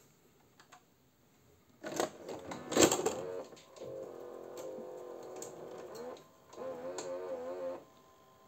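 Video cassette recorder clunking and rattling into play as the tape is loaded, then two stretches of a wavering, pitched whir from its mechanism.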